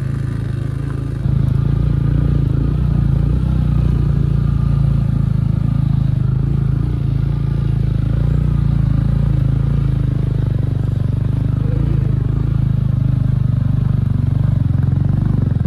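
Motorcycle engine running while riding, growing louder about a second in and then holding steady.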